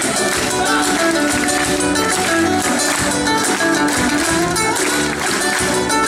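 Live band playing a song on amplified guitars and drums, with a steady beat.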